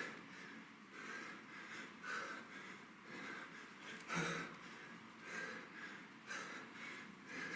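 Heavy breathing of a man working hard through kettlebell thrusters: short forceful exhales about once a second, with a louder exhale and a dull thud about four seconds in.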